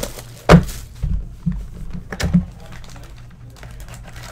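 Cardboard trading-card box knocked down onto a desk: one loud thunk about half a second in, then a few lighter knocks as it is handled.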